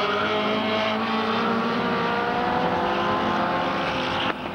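Engines of several small race cars running together, their overlapping pitches shifting slowly up and down. The sound drops suddenly in level near the end.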